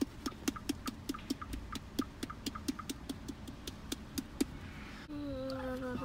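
Quick, even tapping on the hollow plastic shell of a Hatchimals toy egg, about four to five taps a second, stopping about four and a half seconds in. Near the end a short, steady electronic tone sounds.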